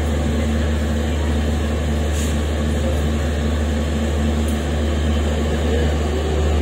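Steady low rumble and hum of an Indian Railways train.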